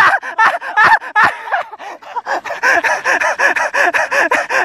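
A person's voice rapidly repeating one short syllable, about four or five times a second, in excited, laugh-like vocalising.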